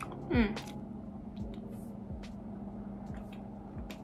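Chewing a soft, moist chocolate chip cookie: faint wet mouth clicks at irregular intervals, after a brief 'mm' about half a second in. A low steady hum runs underneath.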